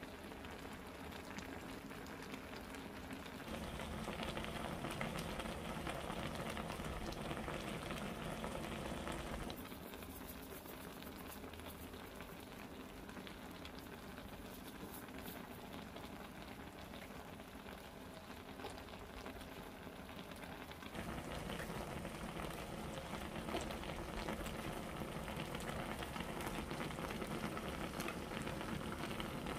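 Braised chicken with aged kimchi bubbling at a simmer in a wide pot on a gas burner, a steady noisy bubbling. It gets louder about 4 s in, softer about 10 s in, and louder again about 21 s in.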